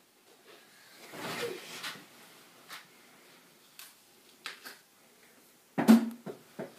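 Bedding rustling as a person moves on a bed, with a few light knocks and one louder thump near the end.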